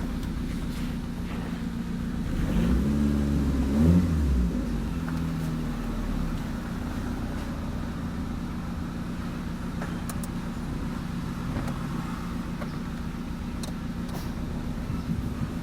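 Car engine idling, revved briefly about three seconds in, with the pitch rising and then falling back to a steady idle.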